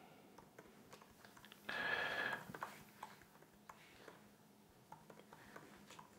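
Faint, sparse computer-keyboard keystrokes as a password is typed, with a brief murmured voice-like sound about two seconds in.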